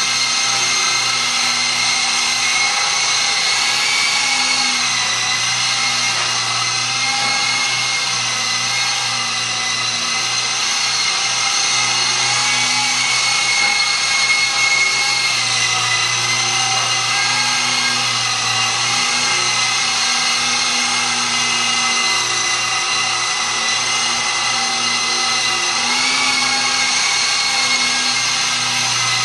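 Electric motor and rotors of an FMA Direct Dragonfly 5 (Walkera) micro RC helicopter in flight: a steady high whine whose pitch rises briefly a few times as the throttle changes.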